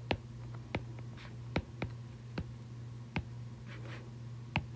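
Stylus tip tapping on a tablet's glass screen while handwriting: about a dozen sharp, irregular clicks, over a faint steady low hum.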